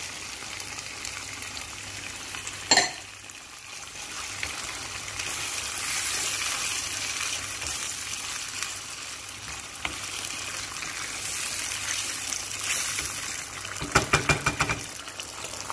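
Tomato sauce sizzling in a non-stick frying pan as freshly added liquid tomato purée cooks, stirred with a wooden spoon. A sharp knock comes about three seconds in, and a quick run of knocks near the end.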